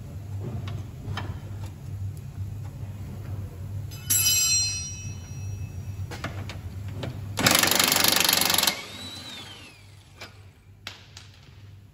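An impact gun runs in one loud burst of about a second, undoing an 18 mm suspension-arm bolt, and then winds down in a falling whine. A few seconds earlier there is a short metallic clatter with a ringing tone, over a low steady hum.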